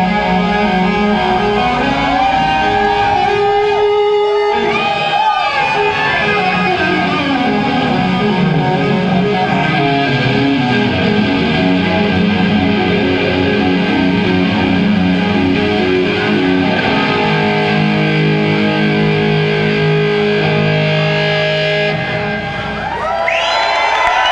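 A hard rock band playing live and loud: distorted electric guitars, bass guitar and drums, with guitar notes bending in pitch a few seconds in. Heard from among the audience.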